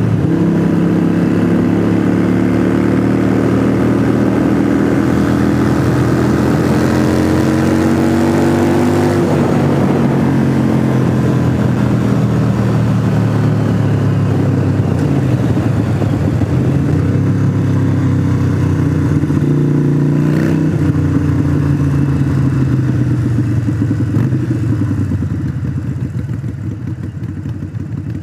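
2017 Harley-Davidson Iron 883 Sportster's air-cooled V-twin, Stage 1 tuned with Vance & Hines Short Shots exhaust, running under way. The engine pitch climbs slowly for the first several seconds, drops, then dips and recovers twice more. Near the end the throttle comes off and the sound fades as the bike slows.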